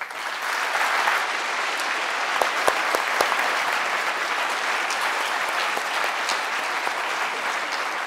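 Large audience applauding, the clapping breaking out at once and holding steady.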